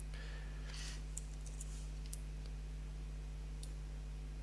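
A few faint, scattered clicks of a computer mouse and keyboard over a steady low electrical hum.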